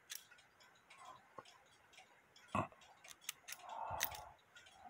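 Faint metallic clicks from the levers of a Hubert Herr cuckoo clock movement as they are moved by hand, with one sharper click about two and a half seconds in and a short scrape near four seconds.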